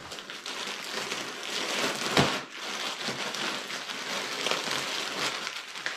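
Plastic poly mailer crinkling and rustling as it is torn open and handled, with one louder crackle about two seconds in.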